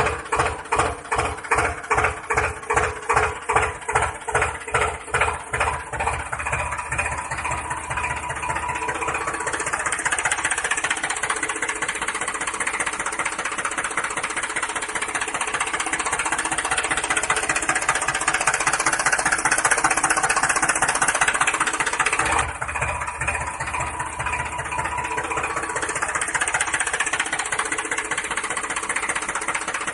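Tractor engine running, chugging in even pulses about twice a second at first, then settling into a steadier, busier run.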